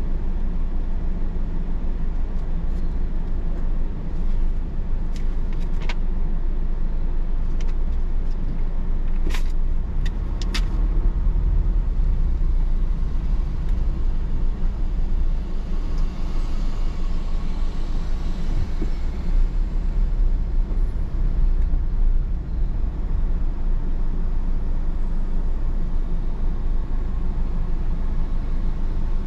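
Steady low rumble of a car driving: engine and road noise. A few sharp clacks come about a third of the way in.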